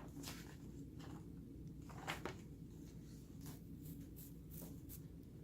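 Paper pages of an instruction manual being handled and turned: a few soft, brief rustles over a low steady background hum.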